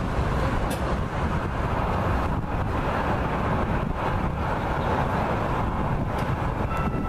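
Valley Metro light rail train and street traffic passing, a steady rumble with wind buffeting the microphone. Near the end a steady tone at several pitches starts up.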